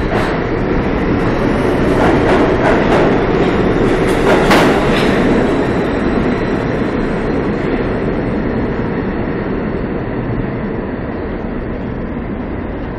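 R32 subway train accelerating out of the station: steel wheels clicking over rail joints over the rumble of the stainless-steel cars, loudest in the first five seconds as the last cars go by, then fading steadily as the train moves off down the tunnel.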